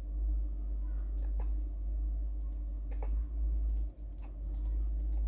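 Computer keyboard and mouse clicks: a dozen or so short, irregular clicks, some in quick runs, over a steady low hum.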